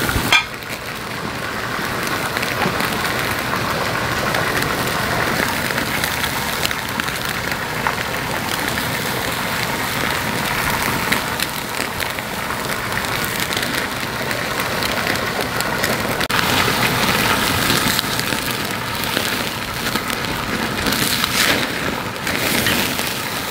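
Food sizzling on a barbecue grill: a steady crackling hiss.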